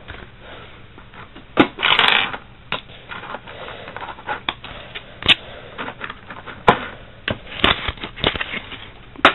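Plastic blister packaging and cardboard being handled: crinkling with irregular sharp clicks and snaps, and a louder crinkle about two seconds in.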